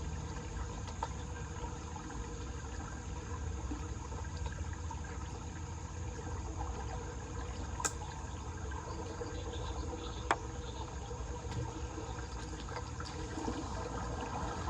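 Floodwater draining steadily into a street storm drain, a continuous flowing of water with a low rumble. Two sharp clicks stand out, about halfway through and again a couple of seconds later.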